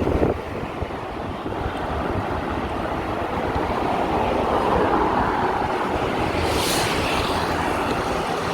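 Road traffic noise heard from a bicycle, swelling as a vehicle passes near the middle, with a brief hiss shortly after and wind buffeting the microphone.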